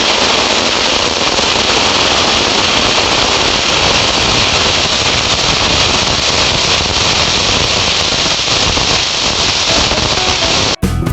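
Fireworks burning with a steady, dense crackling hiss, which cuts off abruptly near the end as guitar music starts.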